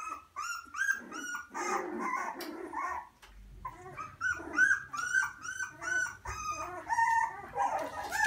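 A litter of 24-day-old beagle puppies making short, high-pitched calls in quick succession, several at once, with a louder overlapping jumble of calls about two seconds in.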